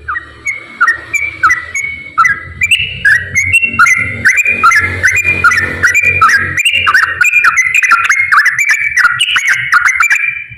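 Yellow-vented bulbul (trucukan) singing its long, rapid 'ropel' song: an unbroken run of quick, bubbling whistled notes that stops just before the end, over a steady low hum.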